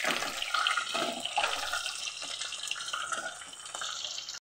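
Hot oil sizzling and crackling as batter-fried chicken pieces are deep-fried in a wok, a steady hiss with many small pops. It cuts off abruptly about four and a half seconds in.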